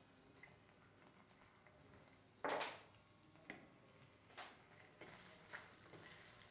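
Garlic, ginger and red chilli flakes frying faintly in peanut oil in a wok, the oil being flavoured with the aromatics. A short louder burst comes about two and a half seconds in, then a few light knocks, and a steadier sizzle builds near the end as the spatula starts to stir.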